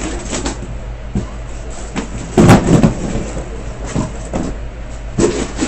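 Cardboard shipping case being opened and handled: irregular scrapes, rustles and knocks of cardboard, the loudest bout about two and a half seconds in.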